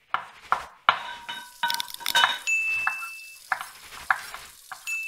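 Kitchen sound effects in an outro jingle: a quick string of clinks and clatters of utensils and dishes, with a short high beep-like tone about halfway through and again near the end.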